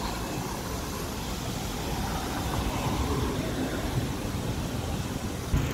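Steady street traffic noise, a continuous rumble of cars on the road.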